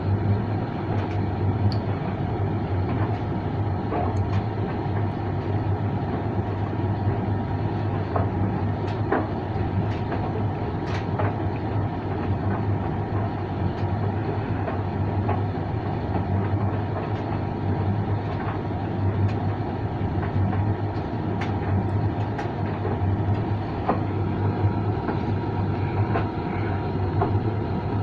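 Creda 37762G tumble dryer running: a steady hum and rumble from the motor and turning drum, with a few light clicks scattered through it.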